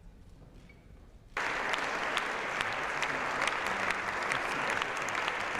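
Faint low background noise, then about a second and a half in, applause from many people starts suddenly, a dense clatter of individual hand claps.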